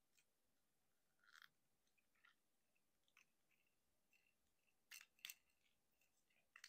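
Plastic parts of a Transformers Legacy United Motormaster figure clicking and snapping as they are moved by hand, with scattered faint clicks and a brief scrape. The two sharpest snaps come close together about five seconds in.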